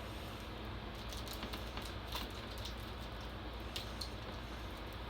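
Steady hiss and low hum of background noise, with a few faint light clicks.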